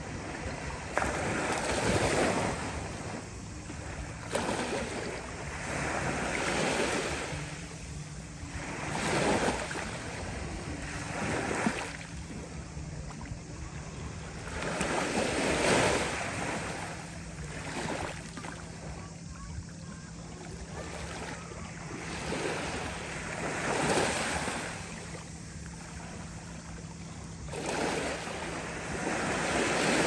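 Small waves of a calm Mediterranean Sea lapping onto a sand-and-pebble shore, each wash swelling and draining back every few seconds.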